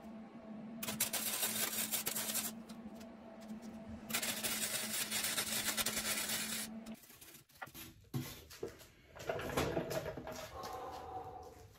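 Arc welder laying two welds on steel: a dense crackling sizzle lasting about two seconds, a short pause, then another of about three seconds, over a steady hum that stops about seven seconds in. After that come knocks and clunks as the metal scooter frame is handled.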